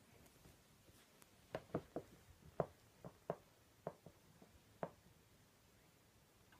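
A quiet run of about ten soft taps and scuffs over a few seconds from a Maine Coon batting and kicking at a furry catnip toy on bedding.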